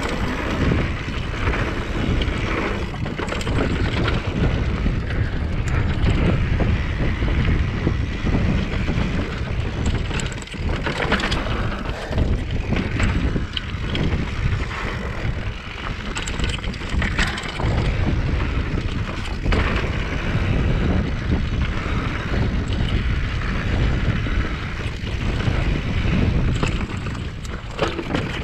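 Mountain bike riding fast down a dirt trail: wind buffeting the microphone over a steady rumble of tyres on packed dirt, with frequent rattles and knocks from the bike over rough ground.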